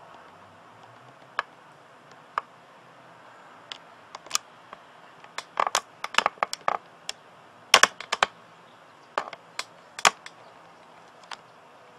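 Irregular sharp clicks and taps, busiest in the middle, over a faint steady hiss: handling noise from fingers and grip on a handheld Panasonic SDR-S26 camcorder.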